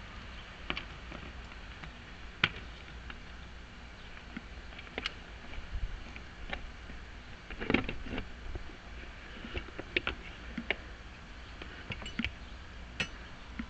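Small metal parts of a lock cylinder being handled during a rekey: sharp, irregularly spaced clicks and taps, a few louder ones standing out over a low steady hum.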